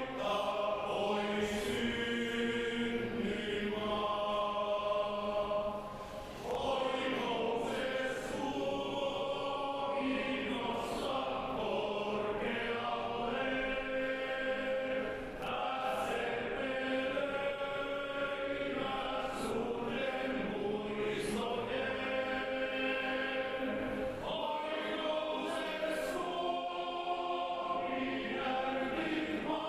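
A choir singing in long held chords, with brief pauses between phrases about six and fifteen seconds in.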